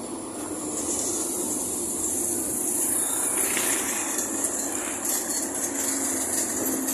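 Bus running, heard from on board: a steady engine drone with a constant high hiss over it.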